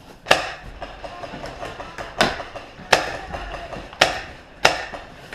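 Five single paintball gun shots, sharp pops spaced unevenly over about four and a half seconds.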